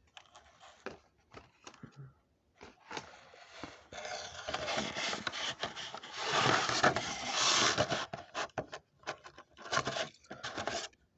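A toy-car package being opened by hand: scattered clicks and scrapes, then a few seconds of steady rustling and tearing of the packaging, followed by more clicks near the end.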